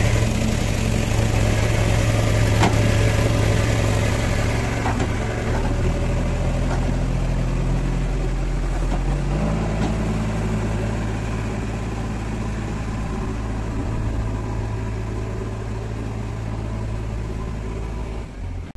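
JCB 3DX backhoe loader's diesel engine running steadily, its engine note changing about nine seconds in. A couple of short knocks come in the first five seconds.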